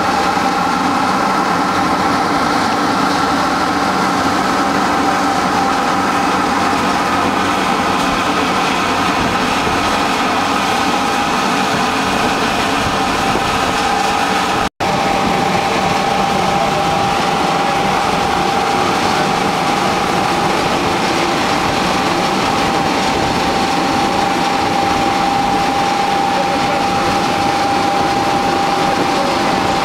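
Small animal-feed pellet production line running: the crusher and HKJ250 pellet mill with their electric motors make a loud, steady machine noise with a steady high whine over it. The sound drops out for an instant about halfway through.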